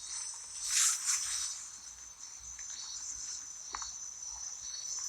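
Steady high-pitched chirring of insects in the background, with a few faint brief sounds over it.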